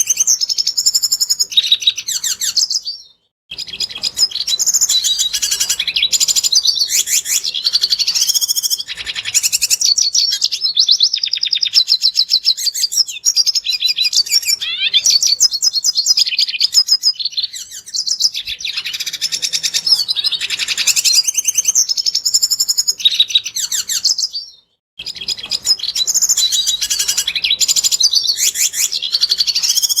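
Red siskin singing: a long run of rapid twittering and fast trills mixed with buzzy notes, broken twice by a brief dead gap, about three seconds in and again about five seconds before the end.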